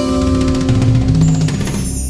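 Background music with drums, guitar and bass; the drums play a fast roll about a second in, and the music thins out near the end.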